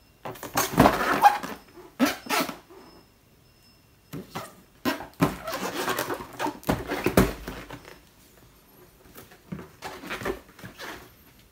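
Cardboard box of a table easel being handled and turned over in the hands: rustling and scraping in four short spells, the loudest about a second in.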